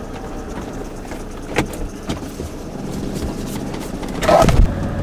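Fiat Ducato camper van's diesel engine and road noise heard from inside the cab while driving, a steady low drone. A brief click comes about one and a half seconds in and a short clatter near the end.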